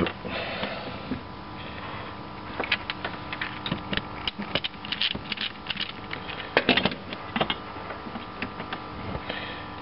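Irregular light clicks and small knocks of a screwdriver and metal parts being handled while a rubber hose is pushed onto the nipple of a Citroën Dyane's diaphragm fuel pump.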